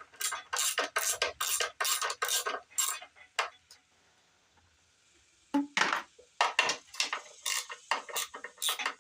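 Ratchet wrench clicking in quick bursts, metal on metal, as it turns the bolts of a small-block V8's valve cover. There is a pause of about a second and a half around the middle, then the clicking starts again.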